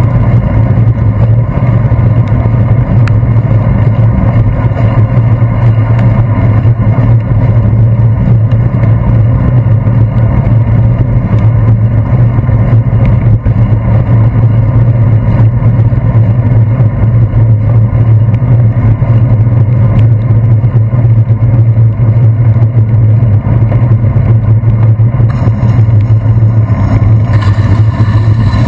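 Loud, steady rumble of wind and road vibration picked up by a handlebar-mounted GoPro Hero 2 on a bicycle riding over wet pavement, with a deep hum that stays level throughout.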